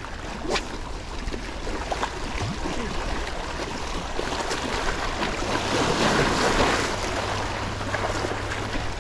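Small waves lapping and washing against a rocky shoreline, with a louder wash about six seconds in, and wind on the microphone.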